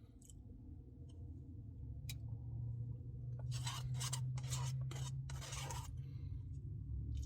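Close-up scraping and rubbing while eating a Dairy Queen Blizzard: three rough strokes from about three and a half seconds in, over a steady low hum.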